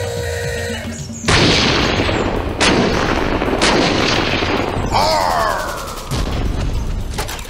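Battle sound effects of gunfire and explosions. After about a second of music, a sudden loud blast and rumble breaks in, then two sharp cracks about a second apart. A falling tone comes about halfway through, and another blast follows near the end.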